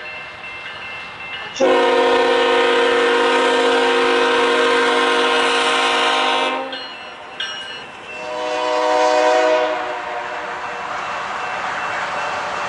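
Locomotive air horn sounding a long blast of several notes together for about five seconds, then a second, shorter blast a couple of seconds later. It gives way to the steady rushing noise of the train running past on the rails.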